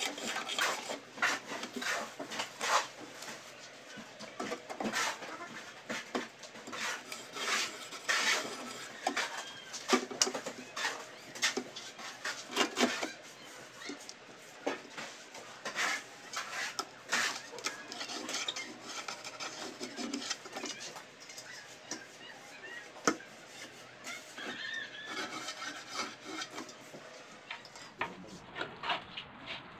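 Irregular scraping, rubbing and light knocks of a metal straightedge and pencil against glazed ceramic tile as a cut line is marked. The strokes grow fewer in the last third.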